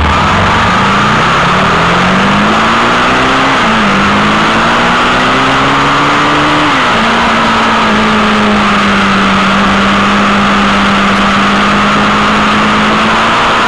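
Sport motorcycle engine pulling hard, its pitch climbing and then dropping sharply at two upshifts in the first seven seconds, then holding a steady note at cruising speed. A constant rush of wind and road noise on the microphone runs under it.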